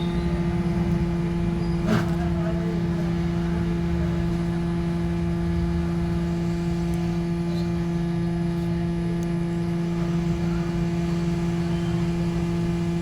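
Hot air rework gun blowing steadily as it heats a phone's charging jack to desolder it: a steady hum over a low rush of air, with one short click about two seconds in.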